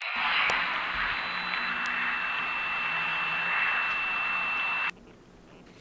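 Television static: an even hiss with a thin, steady high whine running through it and a few faint clicks. It cuts off suddenly near the end, leaving only a faint low background noise.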